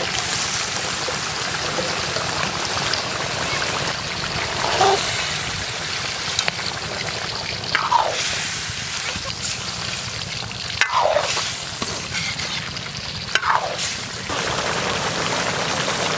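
Chicken and potato curry frying in oil in a pot while it is stirred: a steady sizzle, with four short falling squeaks over it.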